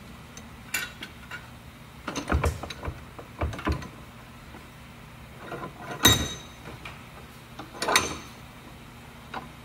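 Irregular metal clanks and clicks as the bull gear assembly is set into a carpet-jawed bench vise and clamped. The loudest knock comes about six seconds in, with another near eight seconds.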